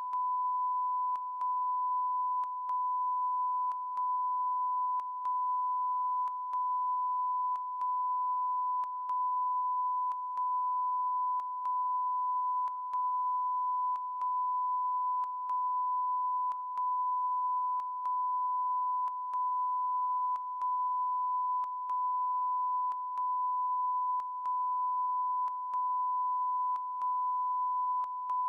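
A steady, pure electronic beep tone, held on and on. It is broken by a short gap with a faint click about every second and a quarter.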